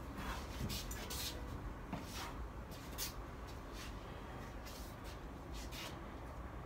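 A string of short swishes from a Cossack shashka sabre cut quickly through the air in close-quarters drills, coming in two bursts, the first near the start and the second past the middle.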